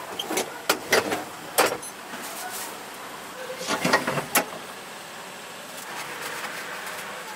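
Metal tongs clicking and tapping against a waffle iron's plates, then a short run of clattering metal knocks about four seconds in as the iron is closed and flipped over.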